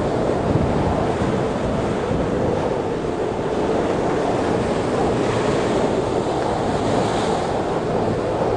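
Heavy storm surf breaking and churning, with wind buffeting the microphone. A louder hiss of a breaking wave swells up about five seconds in and fades after seven.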